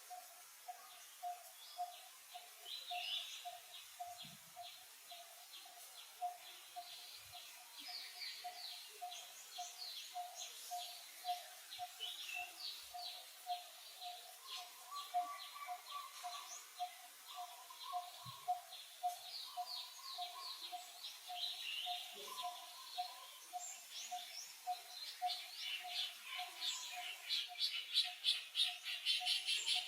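Birds chirping in short high calls that come thicker and faster near the end, over a single low note repeated steadily about twice a second.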